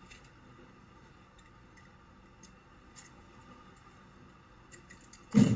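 Faint handling of a plastic electrical receptacle: a few scattered light plastic clicks and ticks as it is turned over in the hand, then one louder knock near the end.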